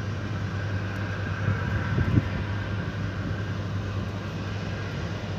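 Distant Airbus A320 jet airliner on final approach, its engines giving a steady low drone with a faint high whine. A brief low thump about two seconds in.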